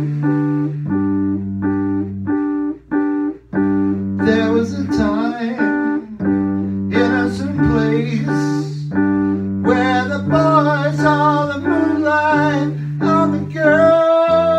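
Electric piano playing repeated chords in a steady rhythm, with a man's wordless singing rising over it at times and a long held note near the end.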